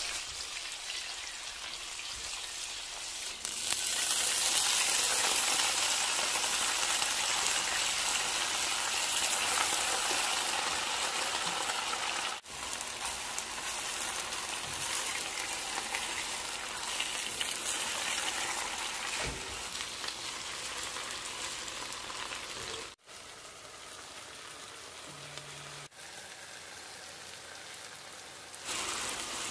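Oil sizzling in a nonstick wok as onion, tomato and garlic and then water spinach are stir-fried with a wooden spatula. The sizzle gets louder about four seconds in, breaks off briefly twice, and is quieter over the last few seconds.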